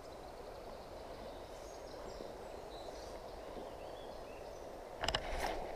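Steady outdoor streamside background hush with a few faint bird chirps, then a brief burst of rustling and clicking about five seconds in.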